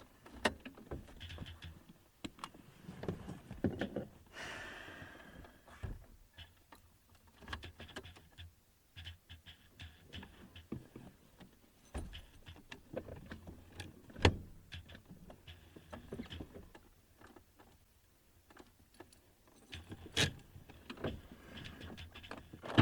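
Scattered clicks, rattles and knocks of handling around a stalled truck, with a brief rustle about four seconds in and sharper knocks about 14 and 20 seconds in; no engine is running.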